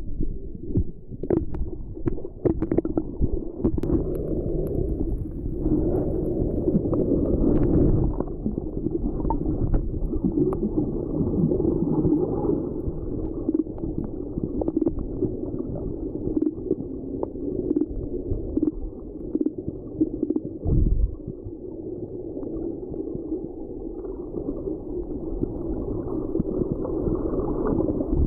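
Muffled underwater rumble and gurgling of water moving around a camera held below the surface, picked up through its waterproof housing. A few sharp clicks come in the first few seconds, and there is a brief low thump about three-quarters of the way through.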